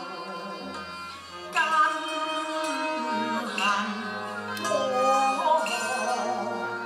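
A Cantonese opera song (yuequ) performed live: a woman's singing voice with vibrato over a Chinese instrumental ensemble accompaniment.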